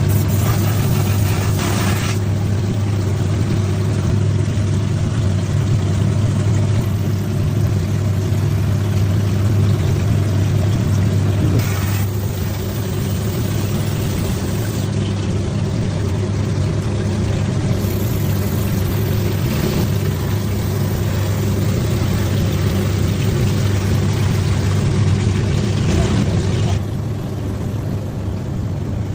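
Small air compressor running steadily for airbrush spray painting, a low even motor hum, with short hisses a few times and a drop in loudness near the end.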